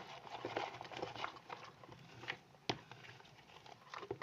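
Sticky clear-glue slime being mixed and worked, making soft squelches and irregular small wet clicks and pops, with one sharper click about two and a half seconds in. The slime is still tacky enough to stick to the hand.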